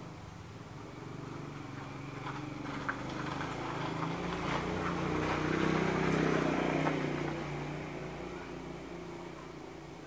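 Engine of a passing motor vehicle, growing louder to a peak about six seconds in and then fading away.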